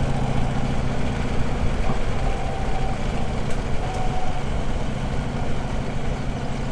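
Harley-Davidson motorcycle's V-twin engine running at a steady pitch while the bike is ridden, heard through a microphone on the rider's helmet.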